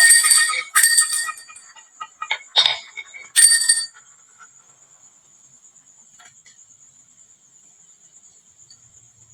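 Marbles clattering and clicking down a wooden marble run. The dense rattle thins within the first second to a few separate clinks with short bright ringing, the last about three and a half seconds in, and after that only a faint steady high whine remains.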